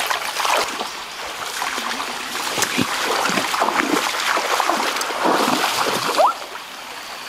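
Shallow creek water splashing and sloshing as a person wades and stirs through it, in a rapid string of small splashes. The splashing falls away near the end, leaving the quieter flow of the stream and a short rising chirp.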